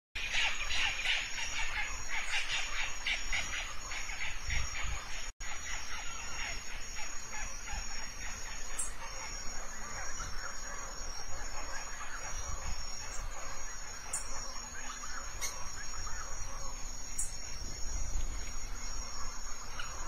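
Rural tropical ambience: insects shrilling in steady high tones, with rapid chirping calls, strongest in the first few seconds, and a low rumble underneath. The sound drops out for an instant about five seconds in.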